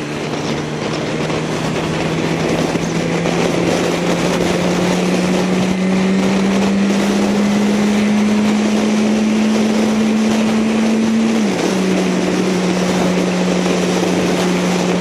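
Motorcycle engine running under way, its pitch climbing slowly as it pulls, then dropping suddenly about eleven seconds in and holding steady, over a constant hiss of wind and road noise.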